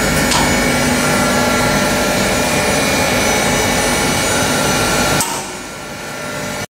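Electric grinding mill for cocoa-shell powder running, a loud steady machine noise with several steady tones. About five seconds in it drops to a quieter, thinner noise, then cuts off abruptly.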